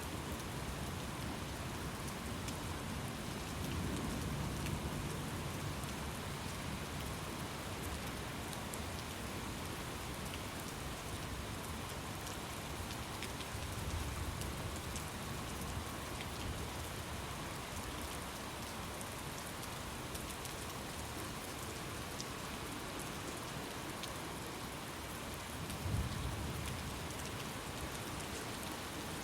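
Steady rain falling, with low rumbles of thunder three times; the one near the end is short and the loudest.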